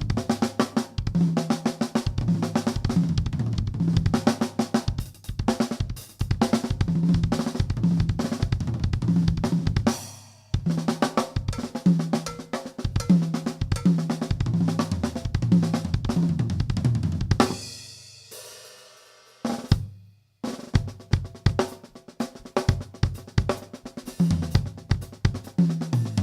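Miked drum kit played solo: fast snare, bass drum, hi-hat and cymbal strokes, with a short break about ten seconds in. About seventeen seconds in, a hit is left to ring out and fade for a couple of seconds, then the playing starts again.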